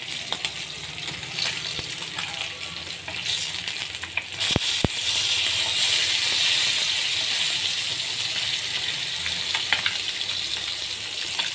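Marinated fish steaks shallow-frying in oil in a pan, a steady sizzle that grows louder about four seconds in. Two sharp taps of the spatula against the pan come close together near the middle.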